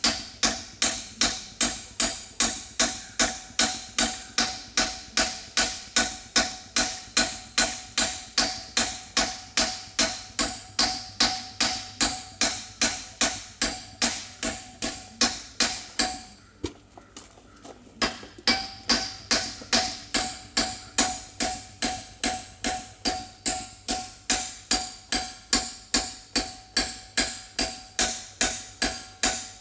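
Carpenter's claw hammer striking a 1/4-inch stainless steel plate clamped in a bench vise, bending the blade over. Steady ringing metal-on-metal blows come about two and a half a second, with a pause of about two seconds a little past halfway.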